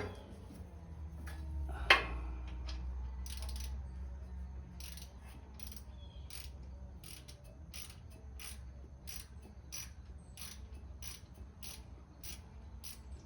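Socket ratchet clicking in a steady run, about two clicks a second, as a small socket loosens the oil drain fitting under a Kawasaki FX730V engine's oil pan. A sharp metallic knock about two seconds in.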